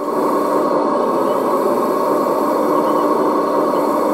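Remote-controlled scale model Liebherr 956 hydraulic excavator running with a steady hum as its arm lifts.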